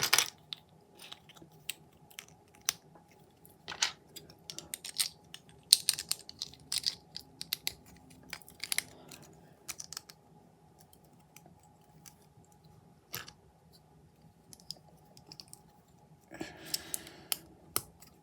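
Small plastic Lego bricks clicking and clattering as they are handled and fitted together: many quick clicks in the first half, then only a few, with a short flurry near the end.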